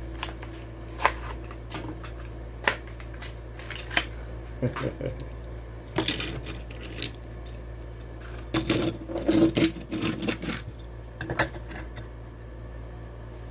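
Die-cast toy car packaging being handled and pulled open by hand: irregular sharp plastic clicks, crackles and small clatters, busiest about halfway through and again past the middle, over a steady low hum.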